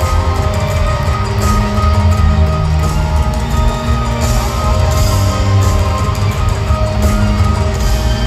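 Amplified live pop-rock band music over a stadium sound system: held guitar and keyboard notes over a heavy, pulsing bass, with no singing.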